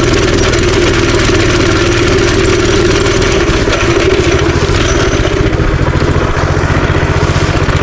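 Minibike's small single-cylinder engine running, settling to a slower, pulsing idle-like speed about five seconds in.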